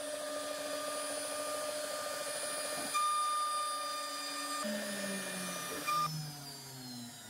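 CNC router spindle whining steadily as a half-inch ball-nose end mill takes the finishing pass along a walnut stile. About five seconds in, the pitch drops and the whine slides steadily lower while getting quieter.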